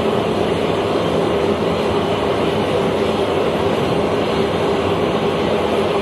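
C-17 Globemaster III running on the ground: a loud, steady jet drone with a constant mid-pitched hum.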